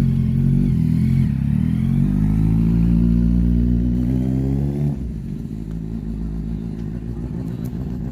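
Motorcycle engine with a loud aftermarket exhaust revving. The note climbs steadily for about four seconds, then drops off sharply as the throttle closes. It runs lower and rougher for a few seconds and starts to rise again near the end.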